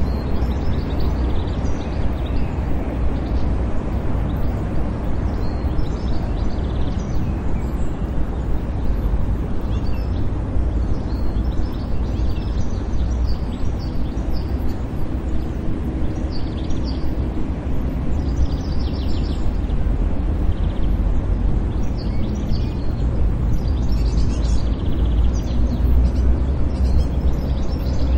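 City park ambience: a steady low rumble of distant traffic with scattered faint bird chirps.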